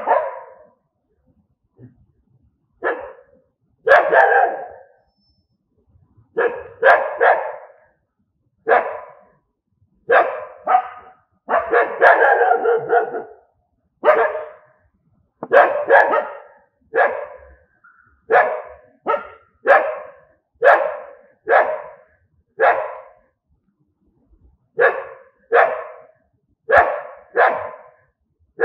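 Dog barking over and over in single barks and quick pairs, about one a second, with short pauses between runs.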